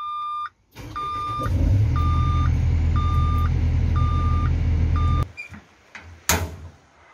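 Kobelco SK200-10 excavator's Hino J05E diesel engine turning over on the starter, a steady low rumble, with the cab's warning buzzer beeping about once a second over it. The engine sound cuts off abruptly about five seconds in, and a single loud knock follows near the end.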